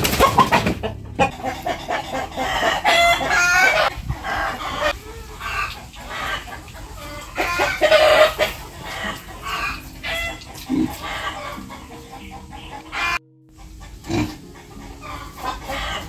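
Penned chickens and roosters clucking and calling again and again, loudest about eight seconds in.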